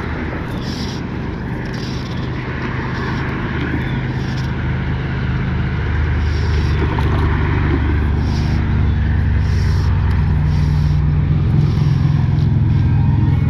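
A motor vehicle's engine runs steadily close by, a low hum that grows gradually louder.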